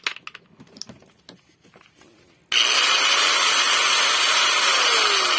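Handling clicks, then a Bosch angle grinder is switched on about two and a half seconds in and runs at full speed with a loud, even whirr. Near the end the pitch starts to fall as it is switched off and spins down.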